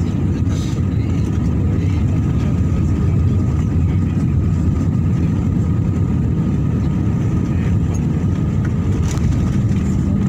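Steady low rumble inside an airliner cabin as the jet lands and rolls out along the runway: engine and rolling noise heard through the fuselage.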